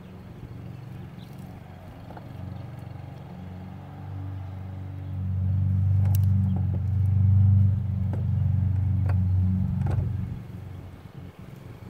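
A low engine rumble, like a motor vehicle running close by, swells louder through the middle and fades near the end. A few sharp metallic clicks sound over it.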